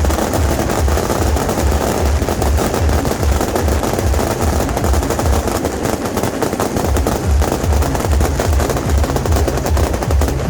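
A beehive rocket barrage: massed bottle rockets and firecrackers going off in a dense, continuous rattle of cracks, over music with a steady bass beat.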